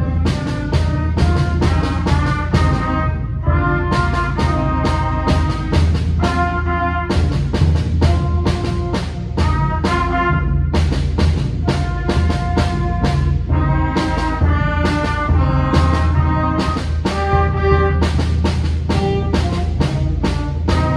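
A small school concert band playing a piece with clarinets, saxophone and other winds in held, changing chords over a steady low bass, with regular percussion accents.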